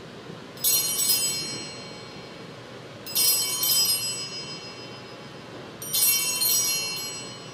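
Altar bells (sanctus bells) rung three times, each ring a short shaken jangle of several high bells that fades over a second or two. The ringing marks the elevation of the chalice at the consecration of the Mass.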